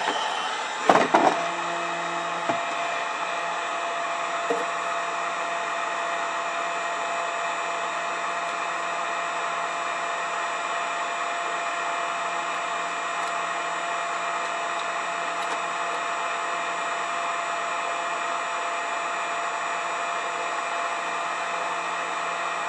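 Electric heat gun running steadily with an even blowing whir, used to soften the wax potting of an old capacitor block. A few sharp knocks about a second in.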